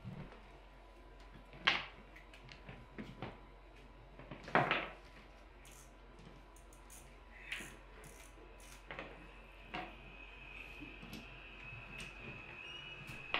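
Small wooden clicks and knocks of Jenga blocks being handled against the tower and table, with two louder knocks about two and four and a half seconds in. A thin steady high tone comes in about ten seconds in.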